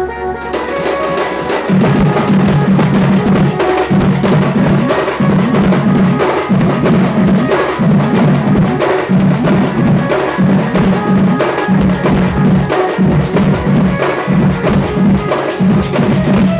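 Sambalpuri-style drum music: a fast, dense drum rhythm with heavy low strokes in a pattern that repeats a little more than once a second. It kicks in about two seconds in.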